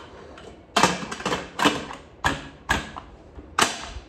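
A metal pressure cooker being handled, with about six sharp clacks and knocks as its parts knock together.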